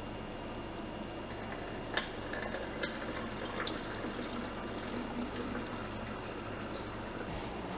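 Goat milk being poured from a spouted jar into a baby bottle, a steady trickle of liquid with a few light clicks of the containers about two to four seconds in.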